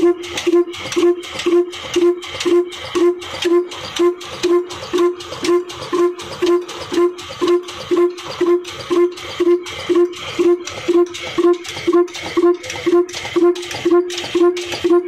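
Ruston Hornsby 22 HP single-cylinder horizontal diesel engine running steadily, a regular exhaust beat of about two and a half strokes a second, each with a ringing note, as it drives a flat belt to a line shaft.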